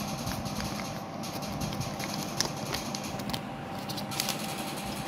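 A paper instruction leaflet crinkling and rustling as it is unfolded and spread open by hand, with a string of small irregular crackles.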